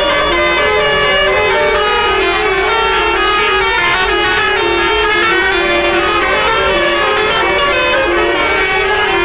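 Tour bus basuri telolet horn playing a melody: several pitched horn tones sounding together, stepping quickly from note to note.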